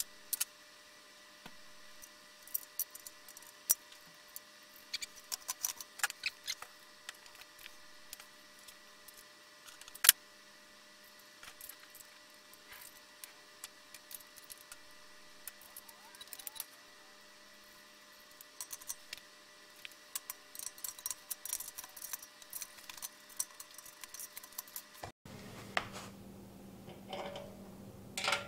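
Scattered metallic clicks, clinks and knocks as the steel legs, braces and bolts of a portable workbench are handled and fitted together, with one sharper knock about ten seconds in. Near the end come a few short scraping clicks of a bolt being driven into the frame.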